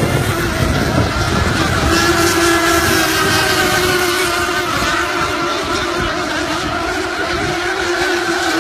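Nitro-fuelled glow engines of radio-controlled unlimited hydroplane models racing on the water, a steady high-pitched whine that wavers slightly in pitch as the boats run the course.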